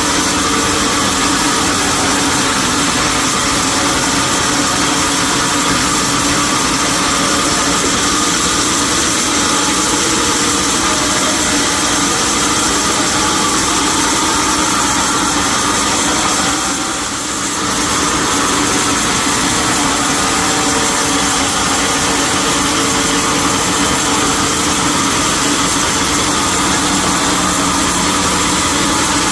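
Sawmill machinery running steadily: a loud, even mechanical noise with a constant hum. The noise dips briefly about two-thirds of the way through.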